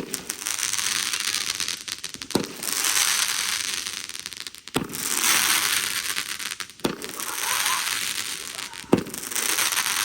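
Consumer fireworks going off: five sharp pops about two seconds apart, each followed by a second or so of crackling hiss.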